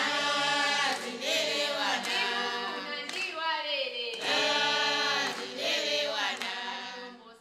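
A group of voices singing together without instruments, with long held notes that slide downward. The singing fades out near the end.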